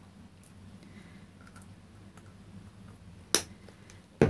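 Quiet room tone with faint ticks while paint is squeezed from a plastic squeeze bottle, then two sharp clicks about a second apart near the end as the plastic paint bottle is handled against the tabletop.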